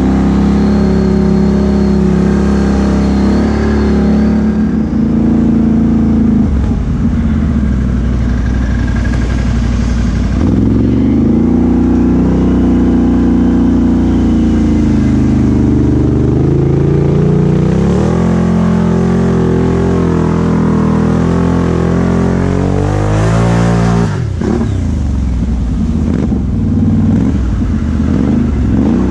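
2017 Can-Am Outlander XMR 1000 ATV's V-twin engine, through an aftermarket Big Gun exhaust, under changing throttle as it rides a muddy trail. The revs rise and fall several times, with a sudden drop off the throttle about 24 seconds in.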